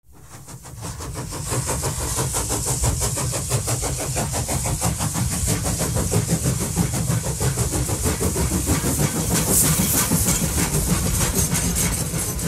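Train running, with a heavy low rumble and a fast, even rhythmic beat. The sound fades in from silence over the first second or two.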